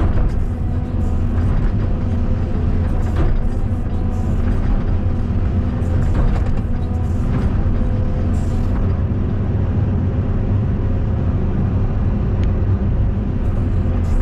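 Caterpillar 320D2 hydraulic excavator's diesel engine running steadily under working load, with scattered knocks and scrapes during the first two-thirds or so.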